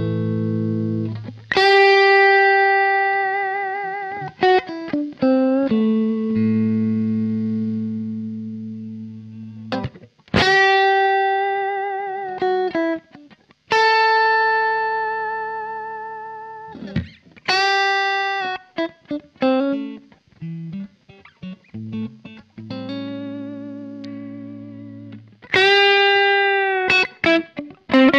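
Electric guitar fitted with Häussel TE Broad-style bridge and neck pickups and an underwound ST-style middle pickup, played through an amplifier. Chords and single notes are struck and left to ring and fade for a few seconds at a time, some with vibrato, with quick picked runs between them.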